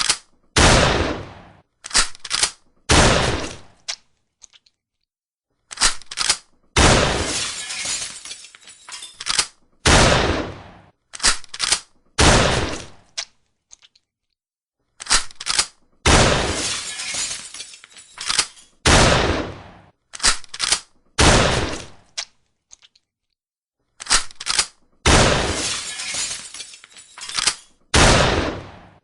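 Shotgun blasts, one after another, each a sharp crack with a trailing decay, some in quick pairs. They come in three runs of several shots, with short silent gaps between the runs.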